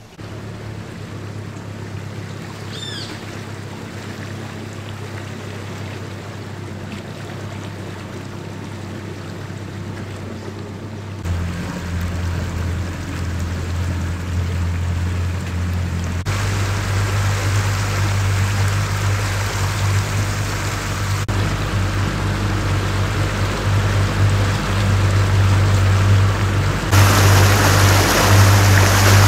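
Mercury outboard motor running steadily as the tour boat moves along the river, with water rushing past the hull and wake; the sound grows louder in several sudden steps and is loudest near the end. A brief high chirp about three seconds in.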